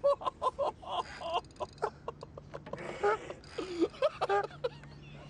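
Short, rapid, wordless vocal bursts from a person, coming in quick runs, with scattered clicks and a faint low hum at times underneath.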